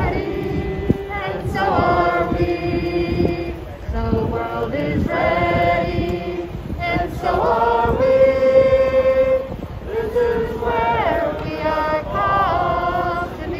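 A crowd of protesters singing together, a slow song in long held notes.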